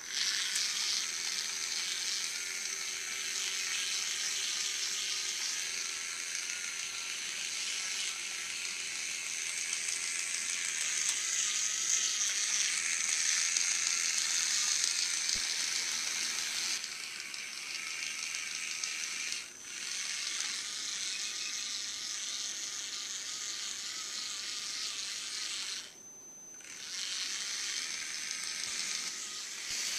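Two small plastic DC gearmotors of a line-following robot whirring with a steady high buzzing whine, its pitch wavering slightly. It breaks off briefly twice, about two-thirds of the way in and again a few seconds later.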